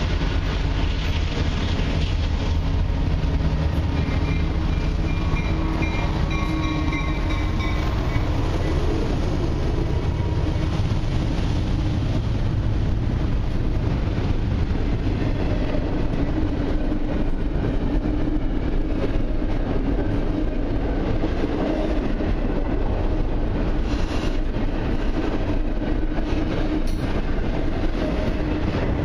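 Double-stack intermodal freight train passing close by. The lead CN diesel locomotives give a heavy low rumble that eases after about twelve seconds, with some thin high ringing from the wheels a few seconds in. Then comes the steady rolling noise of the container cars' wheels on the rails.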